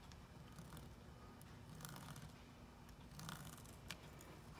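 Faint scratching of a ballpoint pen tracing around a ratchet head on rubber drawer liner, with a few light rustles of hand and tool handling.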